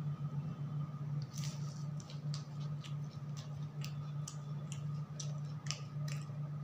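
Close-miked chewing and mouth sounds of a man eating a besan-battered Malabar spinach pakora with rice: a string of wet clicks and smacks that starts about a second and a half in, over a steady low hum.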